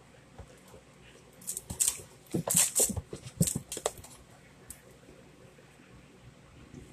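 A cardboard soda box rustling and bumping as kittens scramble into and against it on a carpet: a cluster of scuffles and knocks from about one and a half to four seconds in, then only faint ticks.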